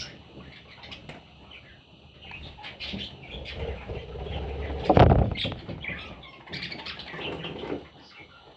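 Parrot chicks chirping in short, scattered calls, with a louder rustle about five seconds in.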